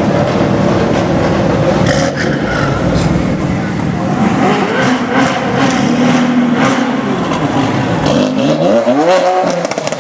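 Tuned BMW M2 Competition's twin-turbo inline-six through a loud Remus exhaust, running with repeated crackles and pops. Near the end a rev climbs steeply in pitch.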